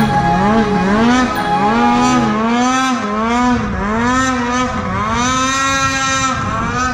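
Snowmobile engine being revved up and down over and over, its pitch rising and falling a little more than once a second.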